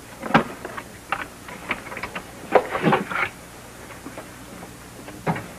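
Scattered light clicks and short rustles at irregular intervals, with a brief cluster of them about halfway through.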